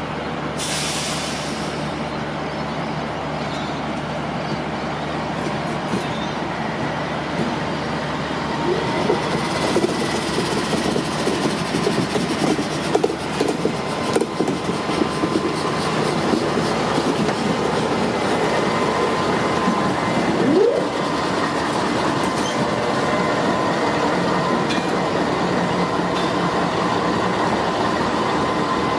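The Overland passenger train rolling past on the rails, with a steady rumble, wheels clicking over rail joints and a faint squeal from the wheels. Partway through there is a brief rising squeal.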